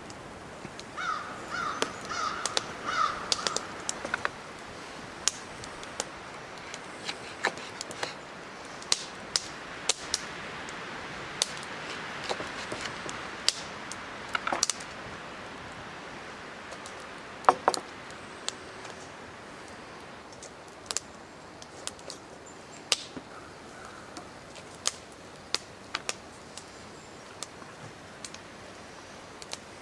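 Scattered sharp clicks and taps from a knife, smoked eel pieces and a glass canning jar being handled on a wooden board. A crow caws in a quick run of calls about a second in, and faintly again near the end.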